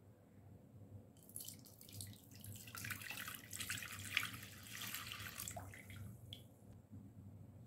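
Lukewarm milk pouring in a stream into a glass mixing bowl, splashing as it fills; the pour starts about a second in and stops near six seconds, followed by a few drips.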